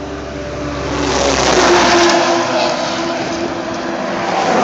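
A motor vehicle going by on the road: engine hum and tyre noise swell about a second in and stay loud.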